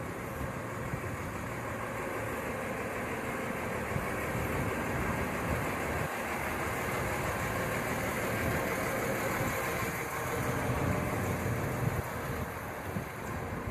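Garbage truck's engine running steadily at idle amid city street traffic, with the overall rumble swelling somewhat through the middle.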